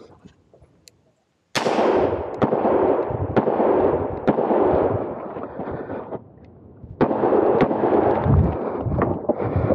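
Smith & Wesson 625 revolver fired in a string of shots about one a second, after a second and a half of near silence, with a short lull near the middle before the shooting resumes.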